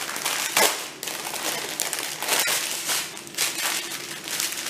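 Clear plastic bags of diamond-painting drills crinkling as they are handled, in several irregular bursts, with one sharp click partway through.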